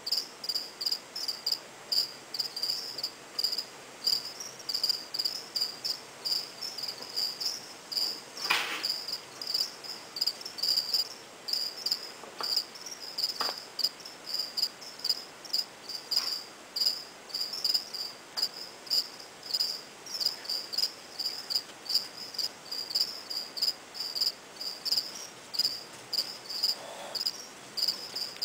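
A cricket chirping steadily, short high-pitched chirps about two to three a second, with a few faint knocks.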